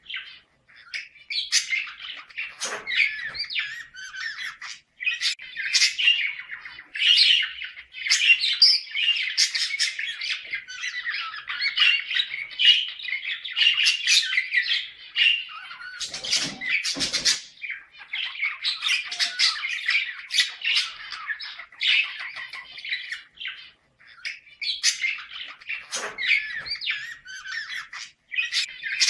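Budgerigars warbling and chattering almost without pause, mixed with sharp squawks: the courtship chatter used to bring pet budgies into breeding condition.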